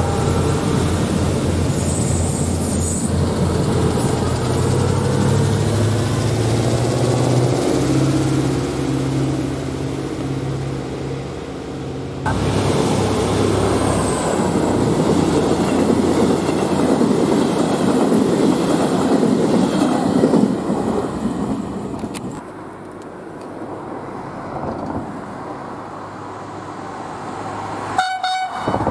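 Diesel trains running on the line: a Minuetto diesel railcar's engines running as it moves through the station, then, after a sudden change about twelve seconds in, the steady noise of a line of passenger coaches rolling past. The sound drops away in the last several seconds.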